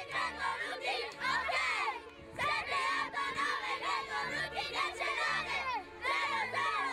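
A crowd of children shouting and cheering, many voices at once, with music playing underneath.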